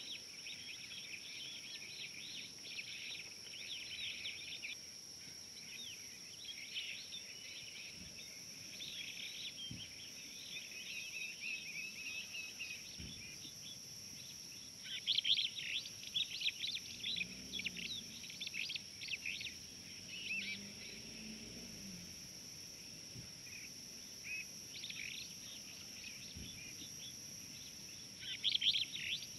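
Wild birds chirping and calling in a dense, overlapping chorus, busiest from about halfway through and again near the end, over a steady high-pitched drone.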